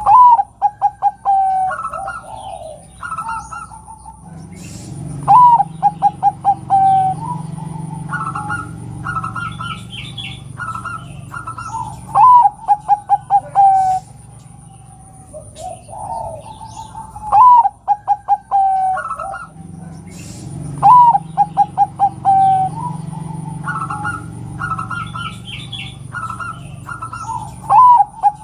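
Zebra dove (perkutut) cooing: six phrases a few seconds apart, each a rising note followed by a quick run of short staccato coos. Fainter high chirps fill the gaps between phrases.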